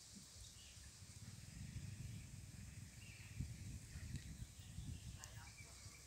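Faint outdoor ambience: a low, uneven wind rumble on the microphone with a few faint bird chirps.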